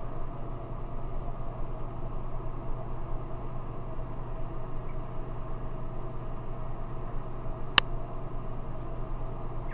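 Steady background hum and hiss with no calls, broken by one sharp click about three quarters of the way through.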